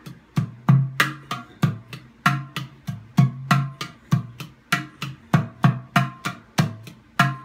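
PANArt Hang Gudu, a steel sound sculpture, struck with the fingers in a steady rhythm of about three strokes a second. Each stroke gives a deep note with a ringing metallic overtone above it, and the deep note changes pitch from stroke to stroke.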